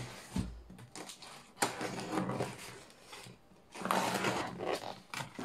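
Rustling and scraping as a shipping package is handled for opening, with a dull thump about half a second in.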